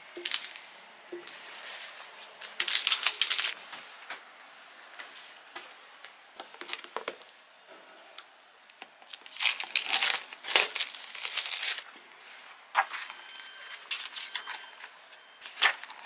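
Plastic packaging crinkling, torn and cut open with scissors, in uneven bursts; the loudest come about three seconds in and again from about nine to twelve seconds.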